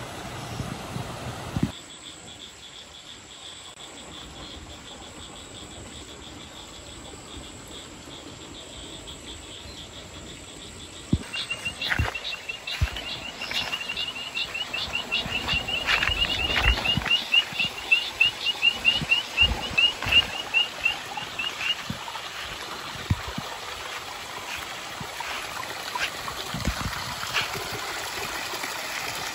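Countryside ambience of calling wildlife: a steady high pulsing trill, then about eleven seconds in a fast run of high chirps, several a second, lasting about ten seconds. Under it are irregular low thuds of footsteps on a grassy path.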